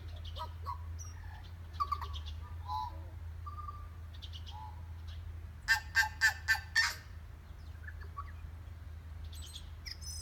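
Tui song: scattered short whistled and gurgling notes, some gliding in pitch, with a run of five loud, harsh clicking notes about six seconds in. A second tui answers from farther off.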